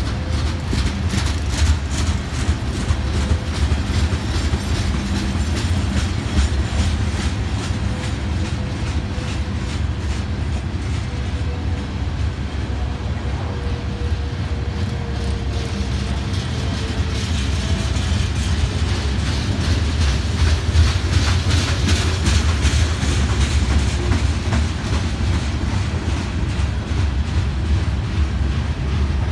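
Freight cars, tank cars and then covered hoppers, rolling past: a steady rumble of steel wheels on rail with repeated clicks as the wheels cross rail joints, growing a little louder in the second half.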